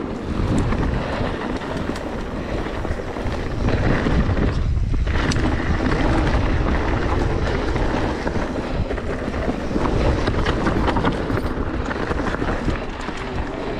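Specialized Turbo Levo electric mountain bike descending a rough trail at speed: wind buffeting the microphone over a steady rumble of tyres on the ground, with many sharp knocks and clatters from the bike over stones and roots.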